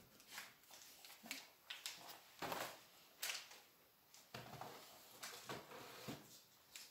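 Faint rustling and light knocks of someone reaching up and handling things on a shelf, a scatter of short soft sounds every half second or so.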